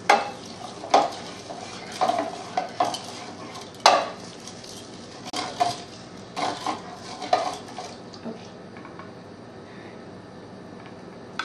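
A spoon stirring a mixture in a bowl, clinking and scraping against the bowl in irregular strokes that die away after about eight seconds.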